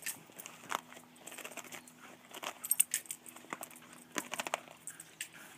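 Doberman chewing up a basketball: irregular crackling and clicking of teeth working the rubber, loudest about two and a half to three seconds in.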